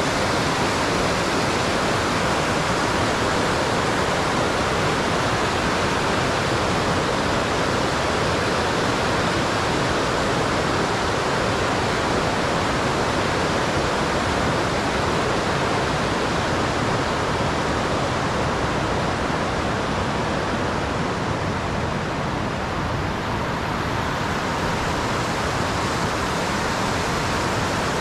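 Steady rush of fast-flowing mountain water, even and unbroken.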